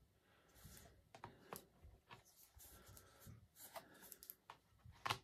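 Faint handling noise of a laptop battery pack being lifted and set back into a MacBook Air's case: scattered light clicks and rubs, with one sharper click near the end.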